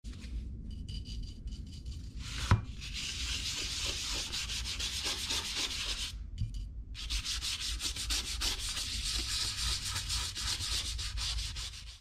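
Toothbrush bristles scrubbing paint onto paper in quick back-and-forth strokes, with a short pause a little past halfway. There is a sharp tap about two and a half seconds in.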